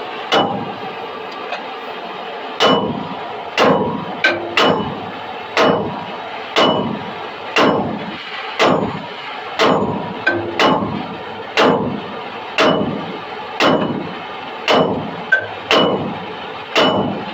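Hammer striking steel, working a seized trailer wheel bearing off its spindle. There are heavy blows about once a second, each ringing briefly, with a few lighter taps between them, over a steady background rumble.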